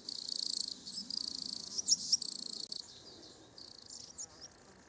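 A cricket stridulating in high-pitched trills, each under a second long, three in a row, then a pause and one shorter trill near the end.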